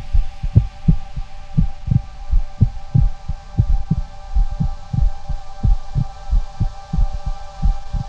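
Soundtrack of deep thumps paced like a heartbeat, about two a second, over a steady droning hum.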